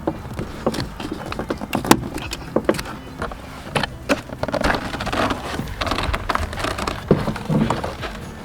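Irregular sharp clicks, taps and light rattles of hands working on a car door's power window switch and its plastic trim, busiest in the middle.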